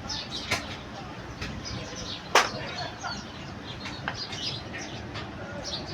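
Small birds chirping repeatedly in the background, with a few light taps and one sharp knock about two and a half seconds in.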